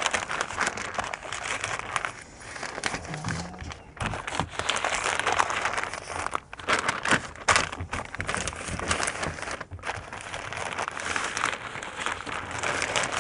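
Butcher paper crinkling and rustling as it is folded tightly around a rack of ribs, with irregular crackles throughout.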